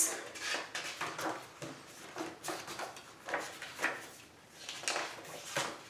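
Handling noise: a dozen or so light, irregular clicks, taps and rustles as small objects, a card and a small lidded box, are picked up and moved about.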